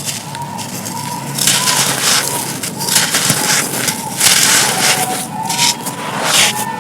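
Dry, brittle crumbly material being crushed and crumbled, giving gritty crunches in several bursts of a second or less.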